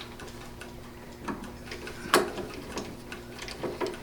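Light metallic clicks and taps of a screwdriver and small screws being fitted into a motherboard's standoffs, irregular, with the sharpest knock about two seconds in, over a faint steady hum.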